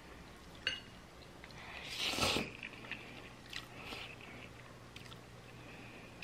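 Close-up eating sounds of noodles (pancit palabok): a short hissy slurp about two seconds in, with soft mouth clicks and chewing around it.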